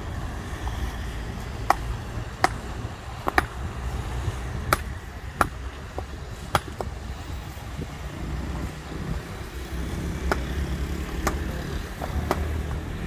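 Concrete paving stones clacking sharply as they are set down against one another, about a dozen separate knocks at irregular intervals. Underneath is the low, steady idle of a Hidromek 102S backhoe loader's diesel engine.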